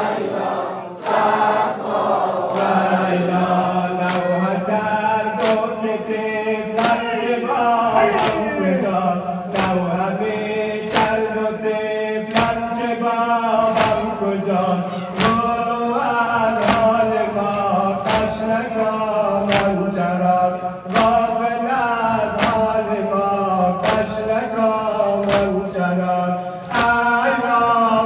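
A group of male mourners chanting a Muharram noha (lament) together. Rhythmic chest-beating (sineh-zani), hands slapping chests, comes about once a second.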